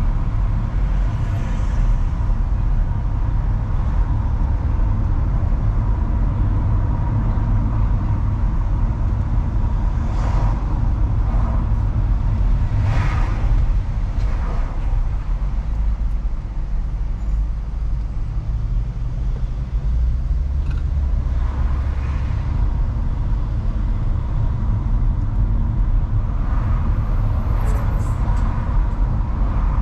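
Car driving in city traffic: a steady low rumble of road and engine noise, with other vehicles swelling past a few times.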